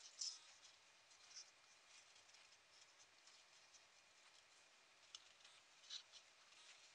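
Faint rustling and crinkling of a folded paper origami cat being handled between the fingers, with a few short crackles (just after the start, near a second and a half, and around five and six seconds) over near silence.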